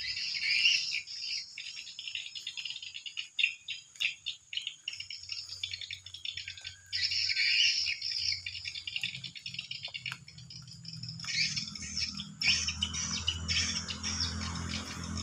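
Dense, rapid chirping and twittering of swiftlet calls: the lure and roosting sounds played from a swiftlet house's speakers, with swiftlets circling the building. A low hum comes in about halfway through and grows stronger near the end.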